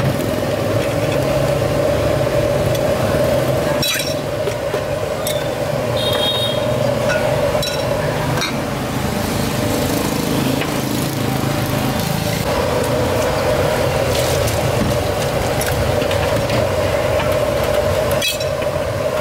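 A steady mechanical drone, with a few sharp knocks and clinks of a metal strainer and utensils against steel pots and ceramic bowls.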